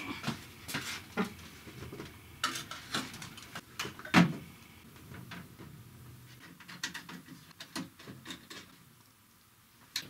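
Scattered clicks and knocks from things being handled around a PC tower case, the loudest about four seconds in, dying away toward the end.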